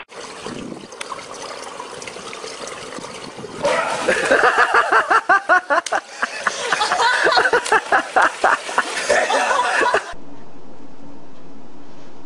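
Water splashing as a cat drops into a swimming pool. Then comes a long run of loud, quick, rhythmic bursts of people laughing. After a cut, a steady low hum.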